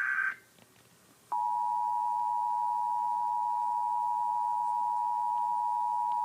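Emergency Alert System broadcast tones: the end of a burst of screeching digital data, a pause of about a second, then the EAS attention signal, two steady tones sounding together just under 1 kHz with a harsh, buzzy pitch, held for about five seconds before cutting off.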